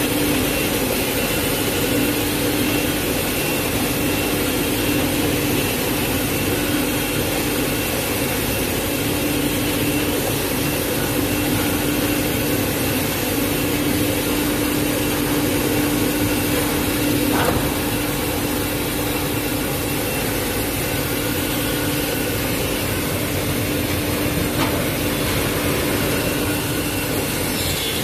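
Automatic kitchen-towel and toilet-roll log cutting line with a band saw cutter, running steadily: a continuous machine hum with a constant tone, and a single click about two-thirds of the way through.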